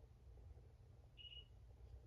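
Near silence: room tone with a faint low hum, and one brief faint high-pitched beep a little after a second in.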